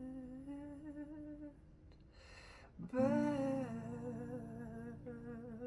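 A singer humming a slow melody in long, wavering held notes. There is a breath about two and a half seconds in, then the humming comes back louder.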